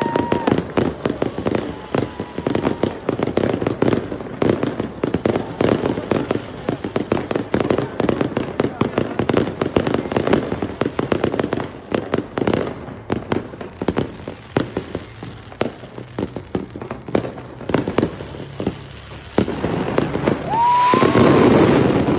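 Fireworks show: a continuous rapid barrage of bangs and crackling bursts. Whistling shells sound briefly at the start and again near the end, where the loudest, densest volley goes off.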